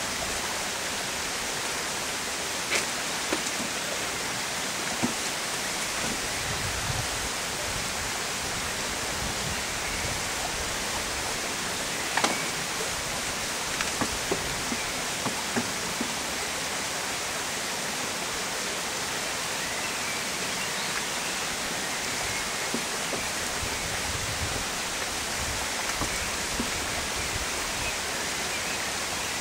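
Steady even hiss, with a few light knocks and clicks from wooden beehive frames and boxes being handled, a cluster of them about halfway through.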